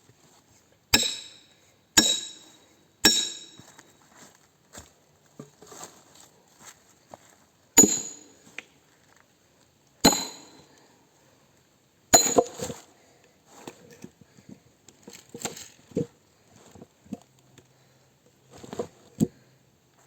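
Hammer striking an axe to split beech wood: sharp ringing strikes, three about a second apart, then three more about two seconds apart, followed by lighter knocks and clinks.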